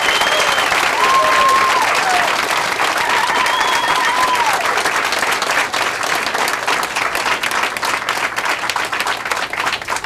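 A crowd of people applauding, with dense clapping that slowly thins out toward the end. A few held calls ring out over it in the first half.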